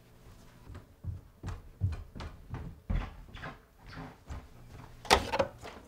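Footsteps coming down a staircase, an even run of soft thuds at about two or three a second, then a louder, sharper bang about five seconds in.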